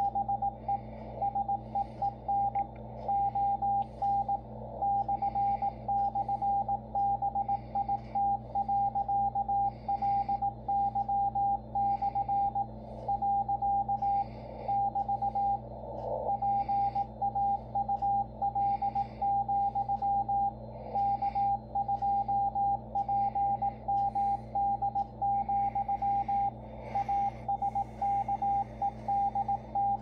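Morse code from the W1AW code practice transmission, received on a Yaesu FTdx10 transceiver and heard through its speaker: a single steady tone keyed on and off in dots and dashes at an even pace, over a low steady hum and band noise.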